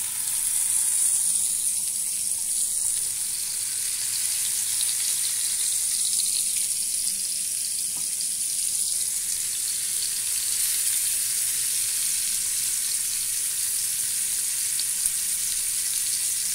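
Marinated chicken drumsticks sizzling in hot coconut oil in a frying pan as they shallow-fry: a steady, high hiss of frying oil.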